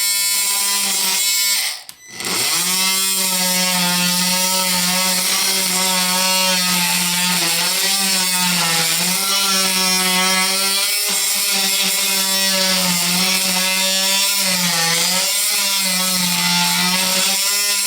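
RYOBI 18V cordless oscillating multi-tool running with a blade cutting into wood, a steady buzzing hum. It stops briefly about two seconds in, then restarts, and its pitch sags each time the blade bites harder into the wood.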